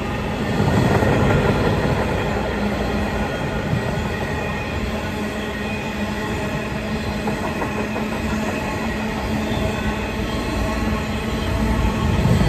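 Train of empty bogie coal hopper wagons hauled by a GB Railfreight Class 66 diesel, the wagons rolling past with a steady rumble of wheels on rail and a steady squealing tone. It swells louder about a second in and again near the end.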